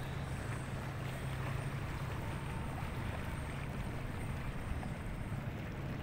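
Steady low engine drone over a continuous wash of wind and water noise.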